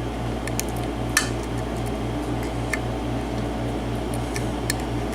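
Faint, scattered metallic ticks of a lock pick lifting and setting the pin stacks inside a pin-tumbler lock cylinder, one clearer click about a second in. Under it, a steady low hum that pulses about four times a second.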